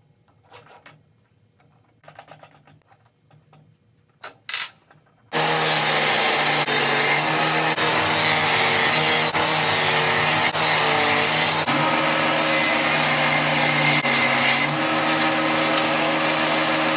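Light clicks and knocks of parts being handled, then a handheld electric power tool, such as a drill, starts about five seconds in and runs loud and steady. Its hum shifts in pitch now and then.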